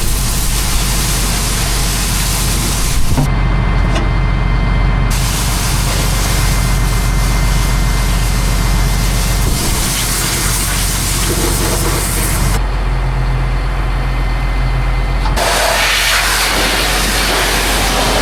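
A motor running steadily under a loud, even hiss; the hiss thins out twice, for a couple of seconds each time.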